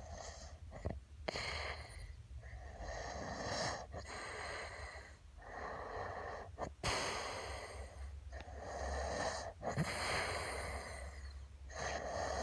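A sleeping person snoring: a run of noisy breaths in and out, each lasting about one to two seconds with short pauses between them, about seven or eight in all.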